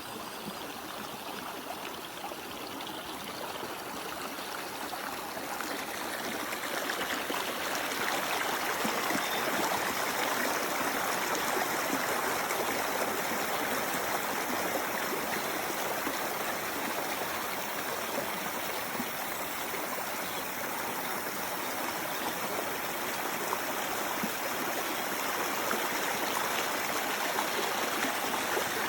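Small mountain stream of spring water running and babbling over rocks, growing a little louder over the first several seconds, then steady.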